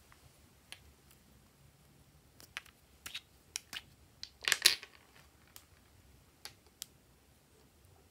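Light clicks and taps of a small round plastic container being handled and opened, with a louder short clatter of clicks about four and a half seconds in.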